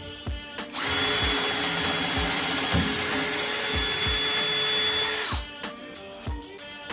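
DeWalt DCD778 brushless 18V cordless drill in first (low-speed) gear, its bit cutting into a wooden board. It starts about a second in, runs with a steady whine and stops near five and a half seconds. Background music with a steady beat plays throughout.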